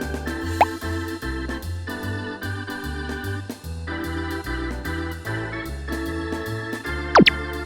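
Upbeat keyboard background music with a steady, bouncy bass line. A brief falling whistle-like sound effect comes just over half a second in, and two quick, louder falling whistle effects come near the end.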